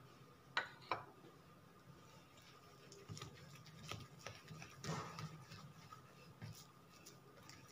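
Two sharp clicks just under a second in, like a small steel cup set down on a stone worktop. Then come faint, soft, irregular pressing and rubbing sounds of hands kneading oil into a ball of bread dough on the counter.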